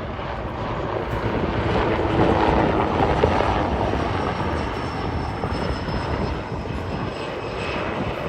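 T625 Gökbey helicopter in flight, its twin turboshaft engines and main rotor running steadily; the sound swells a couple of seconds in, then slowly fades.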